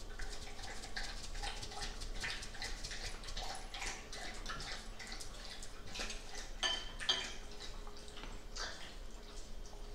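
Dog lapping water in quick, irregular splashy laps, with two sharper clicks about two thirds of the way through.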